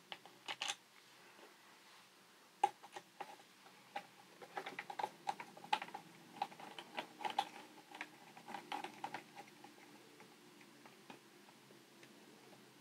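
Faint, irregular small clicks and taps as a pen-style precision screwdriver turns a small screw into the plastic battery cover on the back of a handheld LCR meter. The clicks come in clusters for several seconds, then die away near the end.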